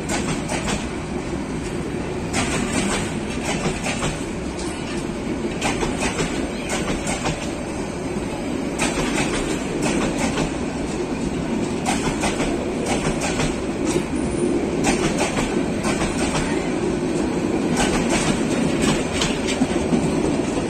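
Passenger coaches of an express train running past on metre-gauge track: a steady rumble with the wheels repeatedly clicking over rail joints.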